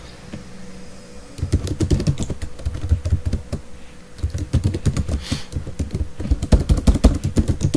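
Computer keyboard typing in quick runs of keystrokes, starting about a second and a half in, with a short pause near the middle: configuration commands being typed into a router's command line.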